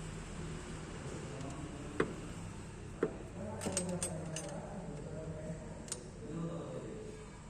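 Sharp metallic clicks and taps of hand tools on the valve gear while the valve clearance is set with a spanner, screwdriver and feeler gauge: two single clicks about a second apart, then a quick run of clicks and one more later. Faint voices and a low hum sit underneath.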